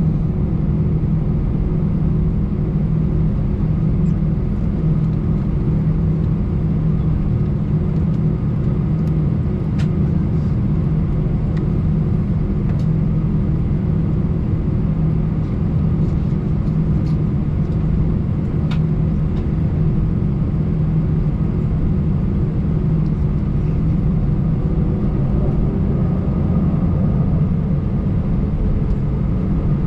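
Airbus A320 cabin noise while taxiing: a steady low drone from the jet engines at idle and the cabin air, with a faint tone rising near the end.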